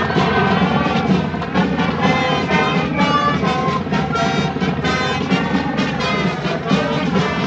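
Brass band music: a parade marching band's trumpets and trombones playing a tune at a steady, loud level.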